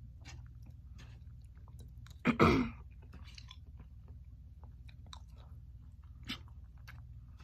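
Close-up chewing of a meal of baked chicken and vegetables, with many soft clicks of a plastic fork picking food off the plate. About two and a half seconds in there is one brief louder sound, and a single sharper click comes near the end.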